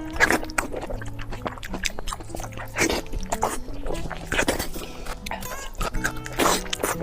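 Background music with steady held notes over close-miked eating sounds: repeated bites and chewing clicks.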